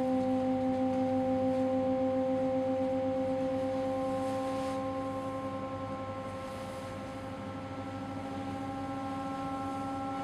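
Music: a sustained electronic drone on one held pitch with a slight waver, growing a little softer midway.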